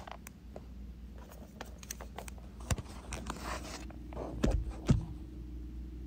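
Small clicks, scrapes and rustles of hands handling the wiring and wire nuts at a dishwasher's junction box, with a few louder knocks near the middle and later on.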